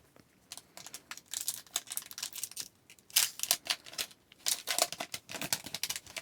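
Wrapper of a hockey trading card pack being torn open and crinkled, in irregular crackly bursts, the loudest about three seconds in and again near the end.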